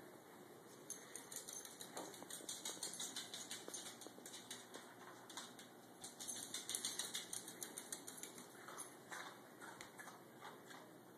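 A dachshund's claws clicking rapidly and lightly on hard wood and tile floors as she trots, in two busy spells with a few scattered taps near the end.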